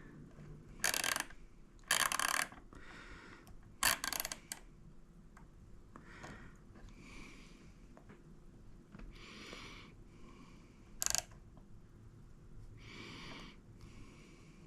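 Small hand ratchet being taken apart for regreasing: short bursts of metal clicking and clatter from the ratchet and its small parts, the loudest three in the first five seconds and another about eleven seconds in, with softer clicks between.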